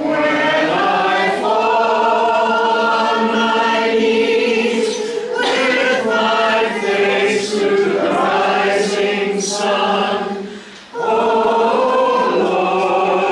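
A congregation singing a hymn together in held notes, with a short breath between phrases about eleven seconds in.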